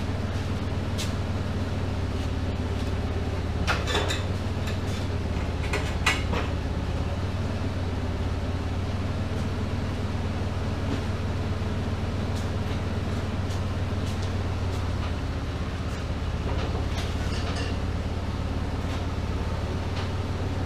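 A steady low mechanical hum, with sharp knocks and clanks about four and six seconds in and a few fainter ones later, as the steel plow is worked on.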